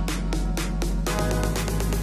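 Electronic background music with a steady beat over a deep bass line.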